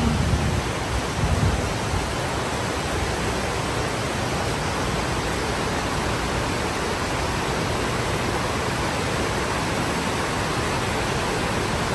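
Water from large plaza fountains cascading and splashing, a steady even rush.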